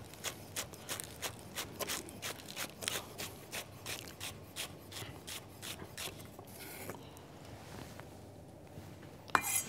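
Chef's knife slicing green onions on the diagonal against a wooden cutting board: steady knife strokes, about three a second, that stop around six seconds in. There is a single sharp knock near the end.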